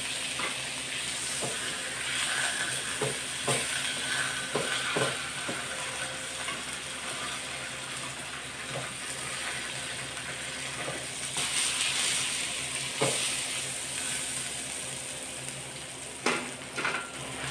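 Pork belly slabs sizzling as they fry in a hot wok over a gas burner, with occasional clicks and knocks of metal tongs against the wok and bowl as the pieces are turned and lifted out.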